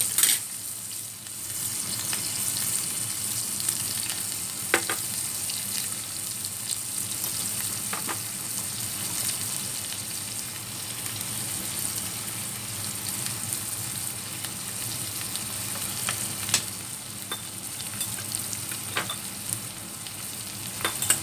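Fish fillets frying in oil with garlic, chili and black-bean chili sauce in a pan: a steady sizzle, with a short sharp tick every few seconds.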